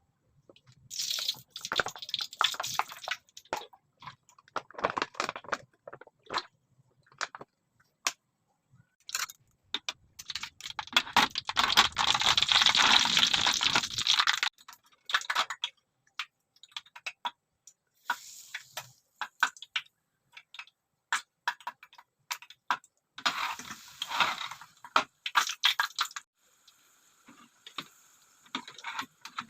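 Kitchen food-preparation sounds: scattered knocks and clinks of utensils and containers being handled, with a stretch of running water lasting about four seconds near the middle.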